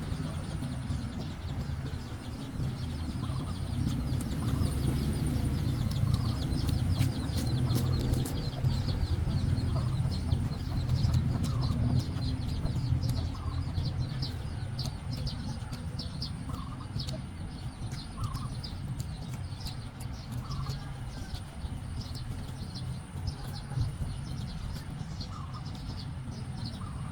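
Chickens and small birds calling now and then over a steady low rumble, with fine rapid crackling throughout.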